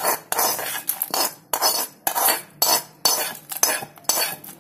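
Metal kitchen utensils scraping and clattering against a steel vessel in short strokes, about two a second, as roasted masala is worked into a container.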